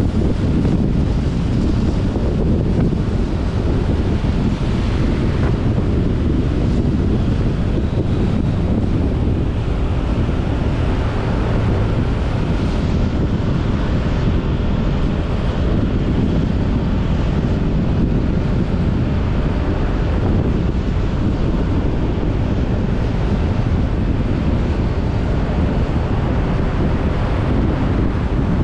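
Steady wind rush on the microphone of a moving motorcycle taxi, with a constant low rumble of the motorcycle and its tyres on the road underneath.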